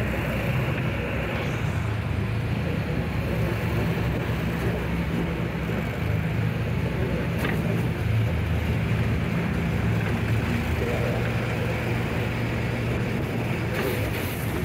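Side-by-side ATV engine running steadily at cruising speed on a gravel road, with a couple of brief knocks.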